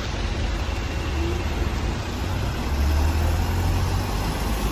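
Road traffic on a city street: a steady wash of passing vehicles, with a low engine sound that grows louder about two-thirds of the way in as a vehicle passes close.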